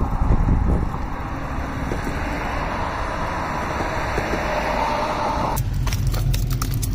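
Road traffic passing on the bridge: a steady rush of tyre and engine noise, loudest at the start. About five and a half seconds in it gives way abruptly to a low steady hum with rapid clicks and rustles close to the microphone.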